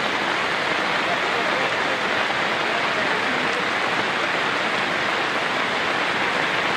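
Steady rushing noise of heavy rain and flowing floodwater.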